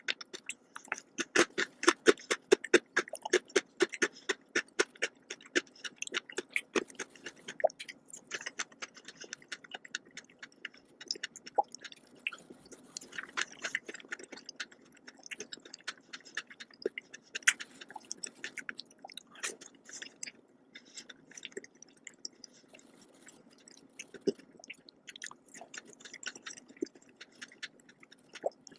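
Close-miked chewing and wet mouth clicks from someone eating a dessert of strawberries, whipped cream, marshmallows and chocolate biscuits. The clicks come rapidly in the first few seconds and thin out later, over a faint steady hum.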